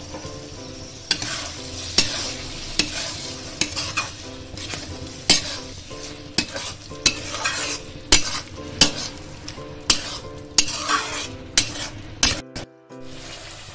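Metal spatula stirring carrots and peas through sizzling, oily masala in a metal kadai, scraping and knocking against the pan about once or twice a second over a steady frying hiss.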